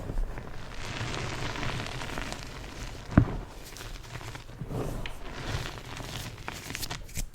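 Yellow-dyed BSN gym chalk being crushed, a steady crunchy, powdery crumbling. One louder thump comes about three seconds in, and a few sharp clicks near the end.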